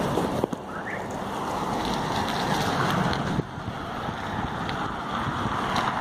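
Wind buffeting a phone microphone on a moving bicycle, with road and traffic noise underneath; the rush dips briefly twice.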